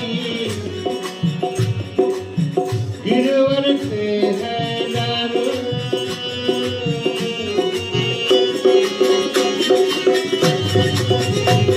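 Live devotional bhajan music: a harmonium holding chords while a dholak barrel drum keeps a steady beat, with a man singing in the first few seconds.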